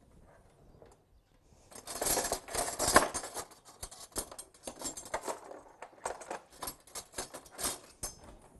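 Fresh mint being handled at the counter: a dense run of quick rustles and crackles starting about two seconds in, loudest around the third second, then thinning out near the end.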